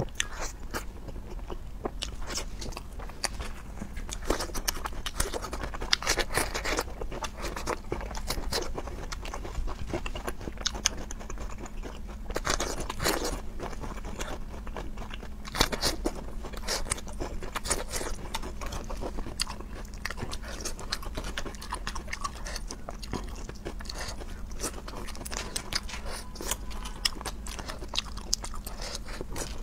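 A person chewing and biting food close to the microphone, with many irregular wet mouth clicks and crunches.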